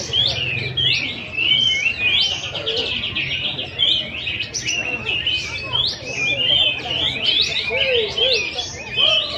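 Many caged competition songbirds singing at once: a dense, unbroken chorus of overlapping whistles, chirps and trills.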